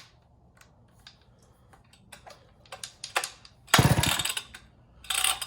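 McCulloch Pro Mac 1010 chainsaw being handled: light clicks and knocks of plastic and metal, then two loud rattling scrapes, the first about four seconds in with a fast low pulsing under it and the second about a second later.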